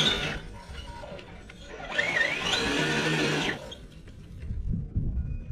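RC crawler's sensored brushless motor whining under throttle, its pitch sliding up and down, with the tyres scrabbling in loose dirt in a burst lasting about a second and a half, starting about two seconds in. A low rumble follows near the end.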